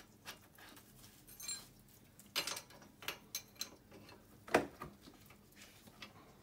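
Scattered metallic clicks and clinks of hand tools and small metal parts being handled on an ATV engine's cylinder head. A brief ringing clink comes about one and a half seconds in, and a sharper knock about four and a half seconds in.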